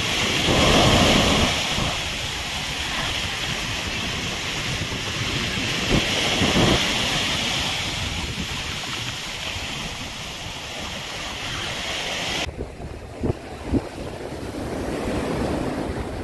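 Small waves breaking and washing up a sandy shore, with wind buffeting the microphone. About twelve seconds in the sound cuts abruptly to a quieter wind-blown hiss, with a couple of brief knocks.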